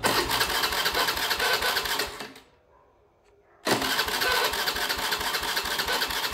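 Honda Vision scooter's electric starter cranking its fuel-injected single-cylinder engine in two tries, about two and three seconds long with a pause between, and the engine not catching: a no-start caused by fault code 12, an injector fault, with the fuel pump not running.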